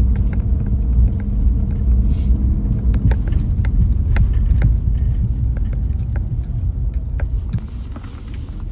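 Car driving, with a low engine and road rumble heard from inside the cabin and scattered light clicks and knocks; a steady hum fades out about three seconds in.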